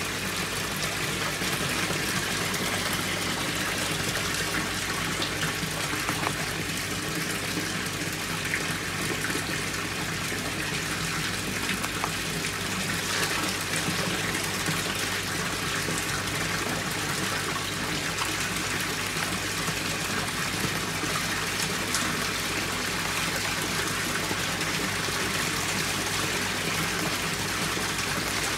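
Water splashing and gushing steadily where the jet of an ACP-631 submersible water pump breaks the surface and churns the water around it, with a steady low hum underneath.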